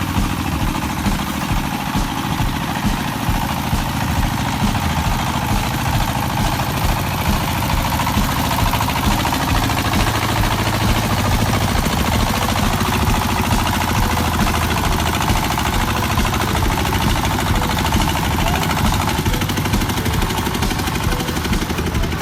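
A farm vehicle's engine running steadily, with a fast, even firing rhythm.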